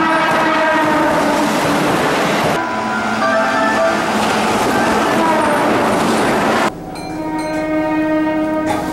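Keihan electric train horns sounding over the noise of trains running, in three clips cut together. A held horn over a passing train gives way about two and a half seconds in to another train's horn in shorter blasts. Near seven seconds the track noise drops away and a steady horn tone is heard on its own.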